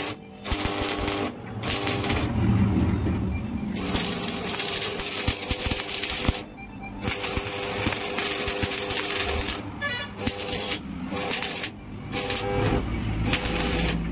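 Stick (arc) welding on a steel square-tube gate frame: the electrode arc crackles and sizzles in runs of a few seconds, stopping and restarting several times as the arc is broken and struck again.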